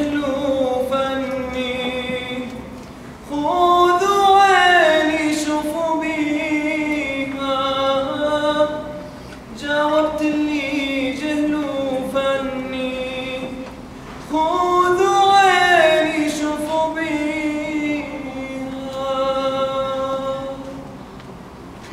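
Male soloist singing long, ornamented Arabic phrases with a choir. Two phrases open with a loud rising swell, and the singing fades away near the end.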